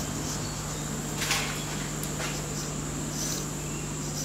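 Steady machine hum with a constant high-pitched whine, like a shop motor running, and a couple of light metallic clicks about a second and two seconds in as the steel collet chuck holder is handled in its aluminium block.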